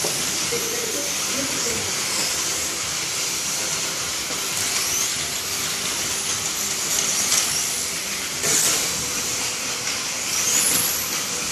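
1:24 scale slot cars lapping the track: a steady high hiss of their small electric motors, with whines rising in pitch as cars accelerate, and the loudest pass about eight and a half seconds in.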